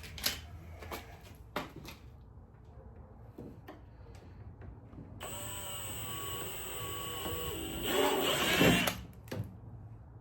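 A powered rivet gun setting a pop rivet in sheet-metal body panel: a motor whine with a wavering pitch for about three seconds, then a louder burst of about a second before it stops. A few light handling clicks come before it.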